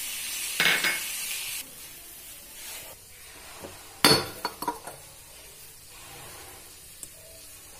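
Tomatoes and masala sizzling in a steel kadai as a steel ladle stirs them; the sizzle stops about a second and a half in. About four seconds in, a sharp clink from the lid of a salt jar, then a few lighter clinks of a spoon scooping salt from the jar.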